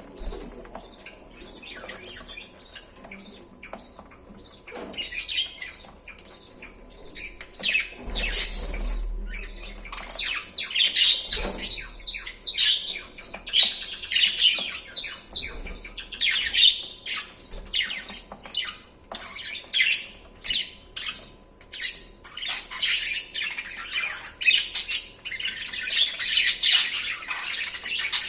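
Several budgies chirping and squawking in rapid short calls, sparse at first and growing busier from about five seconds in, densest near the end.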